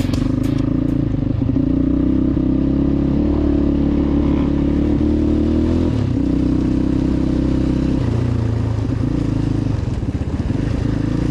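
2006 Yamaha Raptor 700R's single-cylinder four-stroke engine running under throttle on the move, with its pitch dipping about six seconds in and again near the end as the throttle eases and comes back on.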